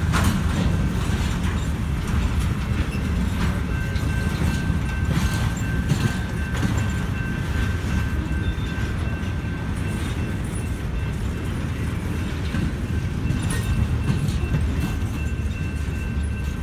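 Intermodal freight cars rolling past at close range: a steady low rumble of steel wheels on rail, with occasional clicks as wheels cross rail joints and a faint steady high whine.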